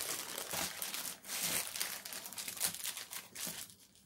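White plastic courier mailer bag crinkling as hands crumple and pull at its taped seal, with irregular crackles that die down just before the end.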